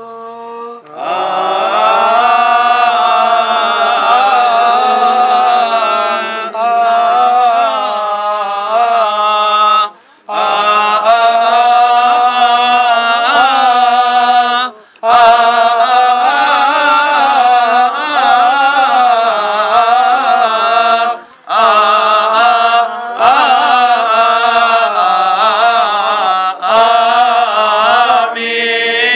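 A man chanting a Coptic Orthodox hymn in long, wavering sung phrases, with short pauses for breath about 10, 15 and 21 seconds in.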